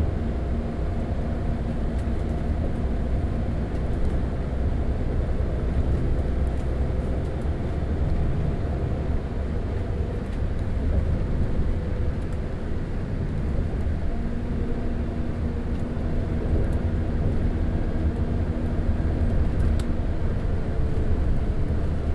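Diesel engine of a route bus running on the road, a steady low drone with a faint humming tone that fades out early and returns partway through.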